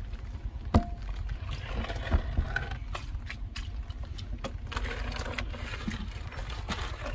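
Shallow water splashing and sloshing as a stick is pushed and poked through it among wet leaves and debris, with scattered taps and knocks, the sharpest about a second in, over a steady low rumble.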